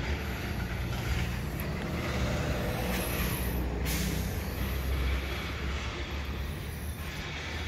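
A steady low mechanical drone, with a brief brighter hiss about three to four seconds in.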